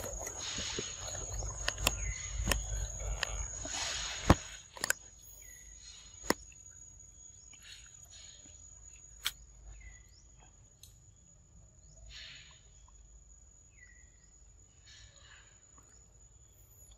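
A steady high-pitched insect drone runs throughout. In the first four seconds it is joined by rustling and a few sharp clicks as a macaque handles and peels a banana. Later a few short, faint chirps come and go.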